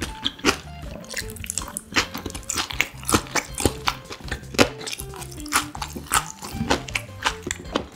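Close-miked eating: crunching bites and chewing, many sharp clicks a second, from a meal of young-radish-kimchi noodles and boiled pork belly. Soft background music plays under it.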